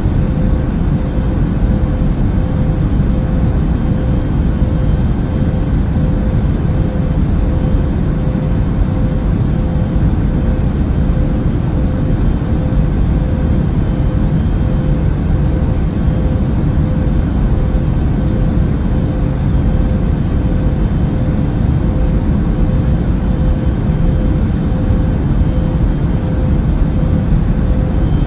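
Airbus A380 cabin noise in cruise flight: a steady, deep hum with a faint constant tone running through it.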